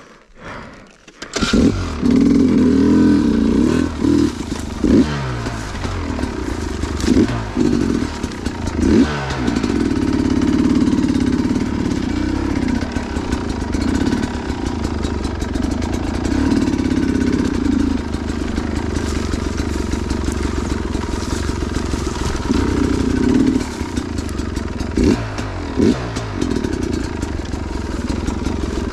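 Two-stroke dirt bike engine comes in loud about a second in and runs hard, with the revs rising and falling repeatedly as the throttle is worked.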